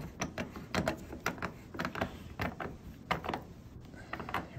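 Metal case nut being screwed down by hand onto the fine threads of a draft beer dispenser's cup sensor, giving a string of small irregular clicks.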